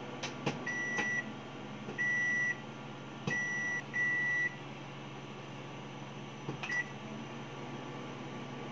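Sharp microwave oven beeping: four clear beeps in the first five seconds and a short beep with a click near seven seconds as its dial is worked. A steady low hum from the oven runs underneath, with a few sharp clicks near the start.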